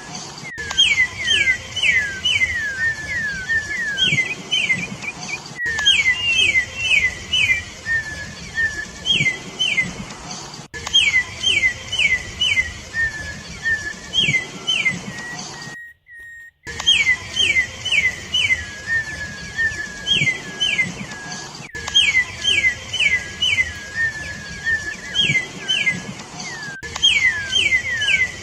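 Campo troupial (corrupião) singing: repeated phrases of three to five quick, clear whistled notes, each phrase ending in a lower slurred note, with a short break about halfway through.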